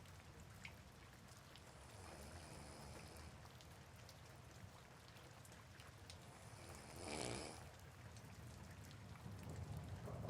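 Soft rain falling steadily, with a person snoring quietly at a slow breathing rhythm, a breath every four to five seconds, the loudest about seven seconds in.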